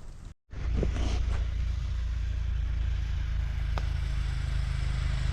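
Buran snowmobile engine running steadily, a low, even hum that grows slightly louder toward the end, with a couple of sharp clicks over it. Campfire crackle is heard briefly before a short cut at the start.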